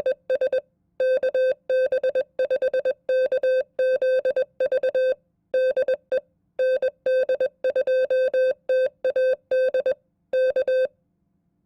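Morse code (CW) at 20 words per minute: a single steady mid-pitched tone keyed on and off in dots and dashes, with longer gaps between characters and words. The sending stops shortly before the end.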